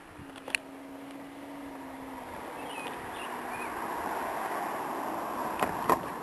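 A passing vehicle's noise builds over several seconds, with a steady hum at the start and a few sharp clicks near the end.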